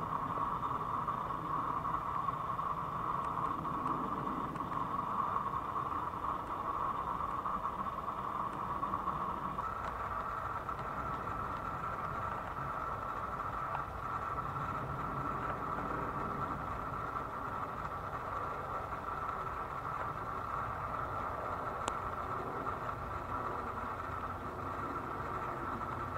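Jet airliners arriving overhead: steady jet engine noise, a low rumble under a constant high whine.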